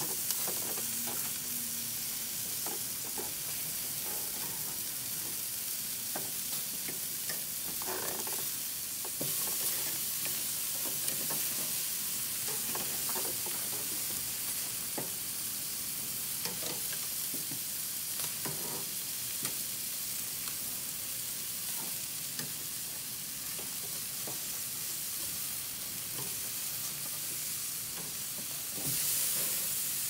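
Chicken leg quarters sizzling steadily over hot charcoal, with scattered clicks and scrapes of metal tongs against the grill grate as the pieces are moved and turned.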